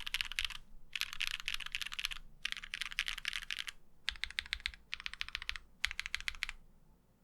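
Typing on a mechanical keyboard fitted with Domikey Cherry-profile doubleshot ABS keycaps: fast runs of key clacks in bursts of about a second, with short pauses between.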